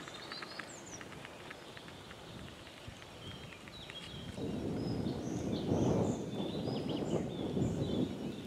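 Small birds chirping and trilling in short, high phrases. About halfway through, an uneven low rumbling noise rises and becomes the loudest sound.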